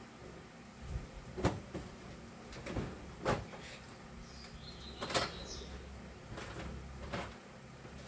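Scattered plastic clicks and knocks from a small folding cordless screwdriver being picked up and handled, about six separate knocks with no motor running.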